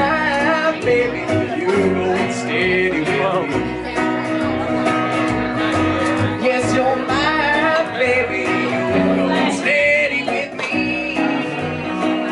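Live country band playing a song: acoustic guitar and upright bass with a singer at the microphone.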